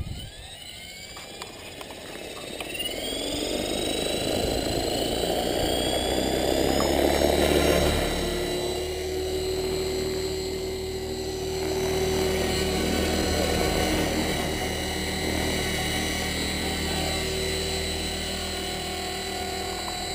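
HK 450 Pro electric RC helicopter spooling up: the brushless motor's whine rises in pitch over the first several seconds as the main rotor comes up to speed, growing louder until about eight seconds in. It then holds a steady pitch with the rotor's whoosh as the helicopter gets light on its skids.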